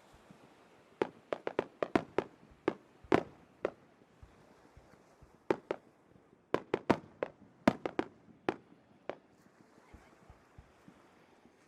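Fireworks exploding: two rapid volleys of sharp bangs, each about a dozen strong, with a lull of about two seconds between them.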